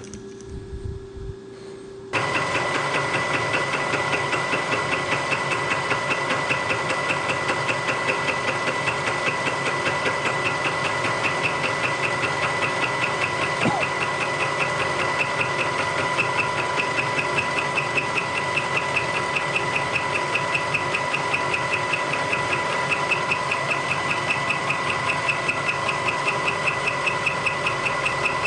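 Bridgeport vertical milling machine running, with its spindle and fly cutter spinning. A steady hum with a fast, even pulse from each turn of the cutter starts suddenly about two seconds in and holds steady.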